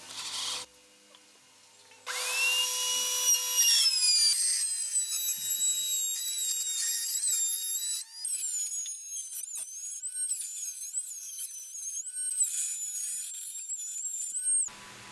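A high-speed power tool motor spins up about two seconds in with a high whine, then runs on. From about eight seconds its pitch wavers and dips over and over as it cuts into wood, and it cuts off suddenly near the end.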